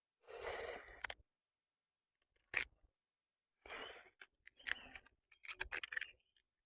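Onion layers being peeled apart by hand, a few faint scraping crackles and sharp clicks, strongest about a second in and again in the second half.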